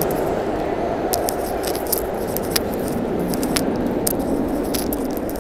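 Steady low rumble of an underground subway station, with scattered sharp clicks and clinks starting about a second in.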